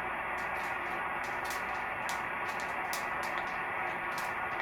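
Steady hiss of radio static from a software-defined radio receiver tuned to an empty sideband channel, played through its speaker, with a few faint ticks.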